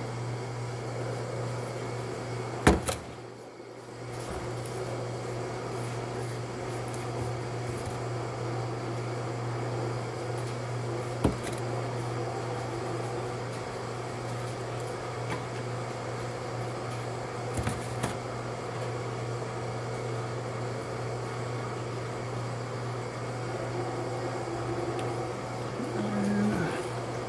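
Steady low hum of a running machine, with one sharp knock about three seconds in and a few lighter clicks later.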